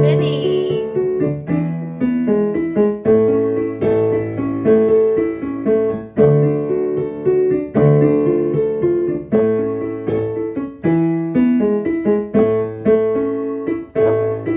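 Piano music: struck notes with a bass line and a repeating melody, a lively tune played for children to spin to.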